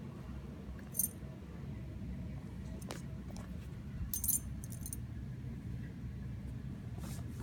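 Metal tags on a dog's collar jingling briefly, once about a second in and again around four seconds in, over a steady low hum.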